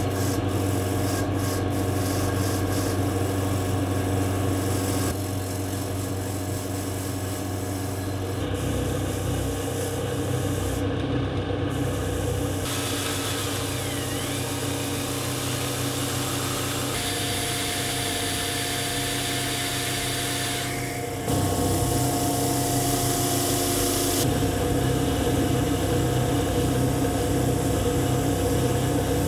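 Wire wheel brush spinning in a drill press, scrubbing rust off small steel parts such as screws and a chain held against it: a steady motor hum under the scratchy rasp of the wire bristles. The sound shifts abruptly several times, and gets a little louder about two-thirds of the way in.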